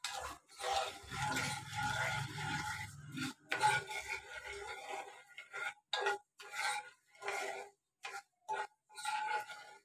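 Steel spoon stirring sugar and water in a metal frying pan, a run of gritty scraping strokes against the pan with a light metallic ring; the sugar has not yet dissolved into the syrup. About halfway through, the stirring breaks into separate strokes roughly every half second.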